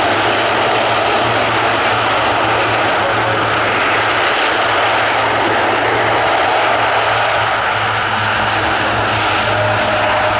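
Airbus A400M's four TP400 turboprop engines and propellers running loud and steady: a low, even propeller drone under a broad rushing noise.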